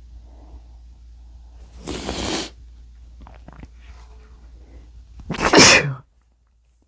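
A person sneezing in sneezes provoked on purpose: a loud burst about two seconds in, then a louder sneeze about five seconds in.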